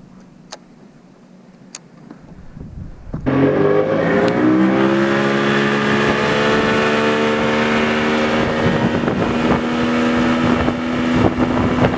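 Mercury outboard motor coming in suddenly about three seconds in, climbing in pitch as the boat gets up to speed, then running steady at high speed. The rush of water and spray runs under it. Before it there are a few faint clicks.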